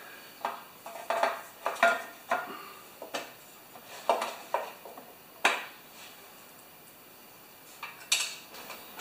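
Engine cover of a Tecumseh lawnmower engine being fitted and seated by hand: a string of light metallic knocks and rattles, most in the first five or six seconds, then two more about eight seconds in.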